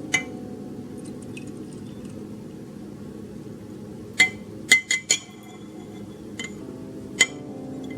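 Kitchenware clinking: about seven light, sharp clinks with a short ring, the busiest cluster of four coming about four to five seconds in, over a steady low background.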